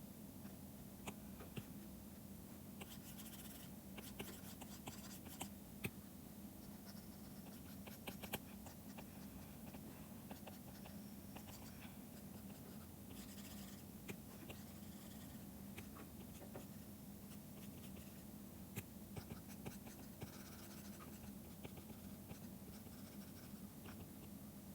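Faint scratching and tapping of a digital drawing pen on a tablet surface, in short strokes and scattered taps, over a steady low hum.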